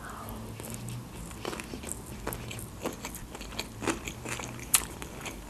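A person chewing a mouthful of sushi roll, with soft wet mouth sounds and a scattering of small crunches and clicks.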